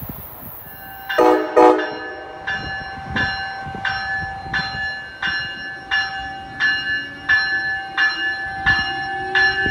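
Two short train horn blasts about a second in, followed by a locomotive bell ringing steadily, about three strikes every two seconds.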